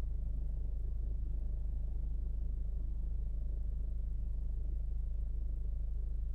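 2016 Ford Focus engine idling steadily, with a fast, even pulsing running through the idle. This is the knocking that the owner hears only at idle and cannot explain.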